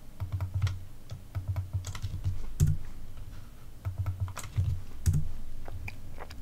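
Typing on a computer keyboard: short, irregular runs of keystrokes with brief pauses between them.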